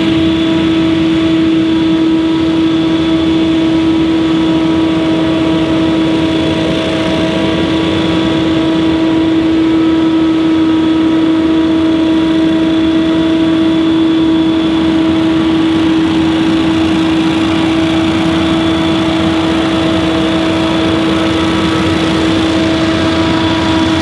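Stand-on leaf blower's gas engine and fan running steadily at one speed: a loud constant drone with a strong steady tone.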